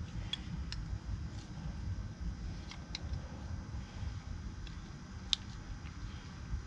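Light clicks and ticks of a GM 3800 crank position sensor being handled and pushed into its mounting bracket by gloved hands, over a low steady rumble. The sharpest click comes about five seconds in.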